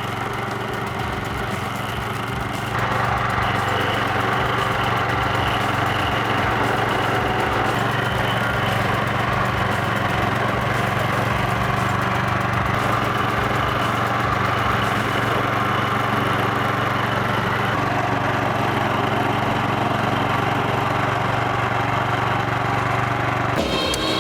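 Small petrol engine of a stump grinder (a 13.5 hp Briggs & Stratton) running steadily, getting louder about three seconds in as it works. A different sound takes over just before the end.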